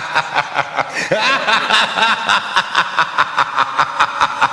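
Rapid, rhythmic giggling laughter in quick bursts, about four or five a second, with squeaky rising-and-falling pitch.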